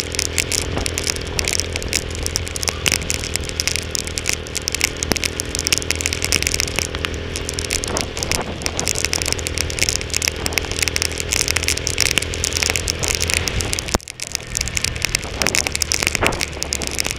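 Tormax 150 motorcycle engine running steadily under way, with rain and wind crackling on the microphone. The owner suspects water is seeping into the carburettor. About fourteen seconds in, the engine note drops away for a couple of seconds, then comes back.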